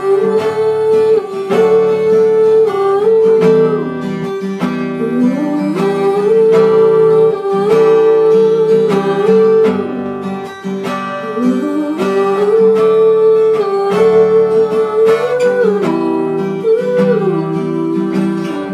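Acoustic guitar strumming chords, with a long held melody on top that slides up and down between notes.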